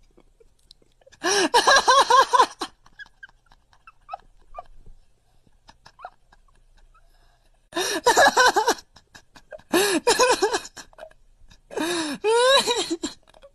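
Tabby cat chattering: four bursts of quick, repeated short cries, each about a second long, a few seconds apart. In the last burst the cries rise in pitch.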